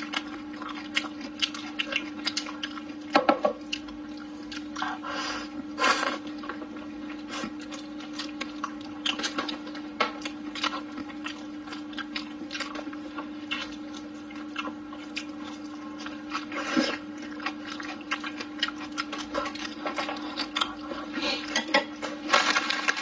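Close-miked chewing and mouth sounds from eating braised food: many short wet clicks and smacks, over a steady low hum. Near the end the eating grows louder as a braised pork trotter is bitten into.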